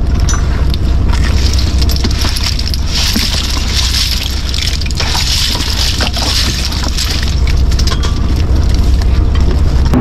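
Fishing boat's engine running with a steady low rumble, while a pile of shells and catch clatters and rattles as it is sorted by hand on the deck, with a hissing, splashing wash over it.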